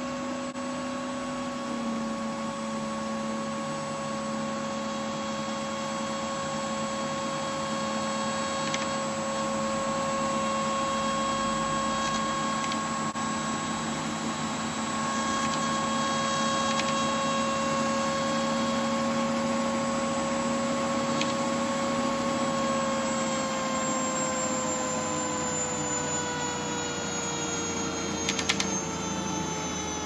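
Motor-driven disc of magnets spinning at full speed, giving a steady mechanical whine. After about twenty-three seconds the pitch starts to sink as the disc slows down, with a few faint clicks near the end.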